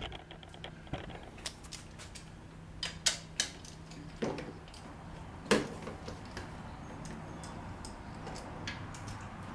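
Scattered metallic clicks and clanks of hand tools, such as a wrench or socket, working on the 15 mm bolts of a tractor's air filter bracket. The loudest clank comes about five and a half seconds in.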